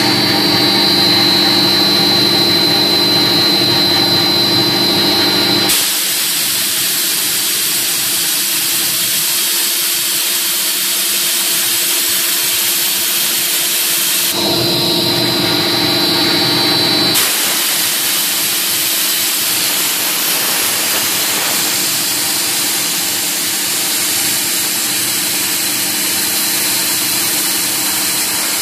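CNC router spindle running steadily while a 20-degree V-bit engraving cutter cuts lettering into a composite plate. Twice, for a few seconds at the start and again about halfway through, a steady multi-tone whine rides on top of the cutting noise.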